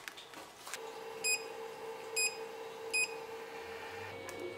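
Creality 3D printer's touchscreen beeping three times, about a second apart, as a print job is started. A steady hum begins just before the first beep.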